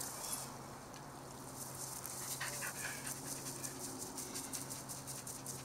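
Two elkhounds, a Swedish Elkhound and a Norwegian Elkhound, panting and moving about in long grass, with a short faint sound from one of them about halfway through.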